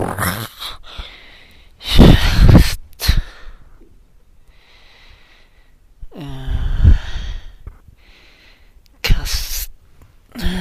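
A person's voice making loud, breathy shouts and gasps in separate bursts with pauses between them. About six seconds in there is a longer vocal sound that slides down in pitch.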